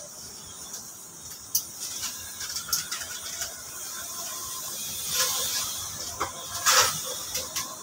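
Birds in an aviary chirping and clicking, with harsh squawks about five seconds in and a louder one near the end.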